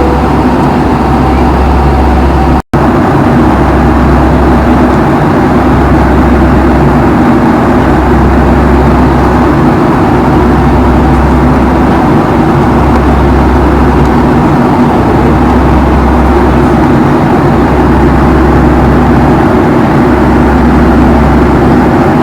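Steady engine and airflow noise inside the cabin of a Boeing 757-200 twinjet in flight, with a deep rumble that swells and fades about every two and a half seconds. The sound cuts out for an instant near the start.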